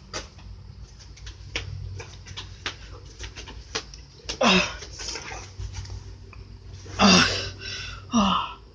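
Three short, loud cries, each falling in pitch, about four and a half, seven and eight seconds in, over scattered light clicks and knocks.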